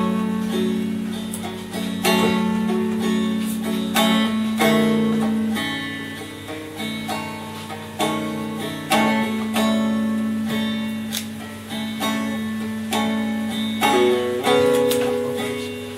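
Guitar playing a song's instrumental introduction: strummed chords struck every second or two, ringing over a held low note.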